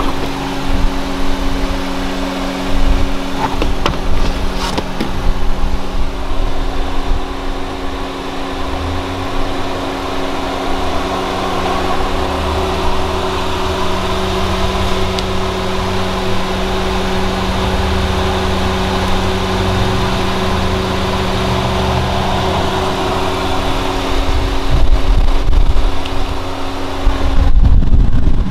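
Steady mechanical hum of a running vehicle, several even tones held over a low rumble; the hum cuts off about a second before the end.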